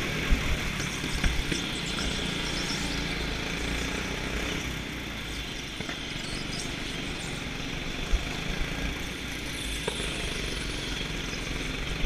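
Go-kart engine running steadily as the kart laps, heard on board, with low wind rumble on the camera's microphone and a few sharp knocks near the start and again about eight seconds in.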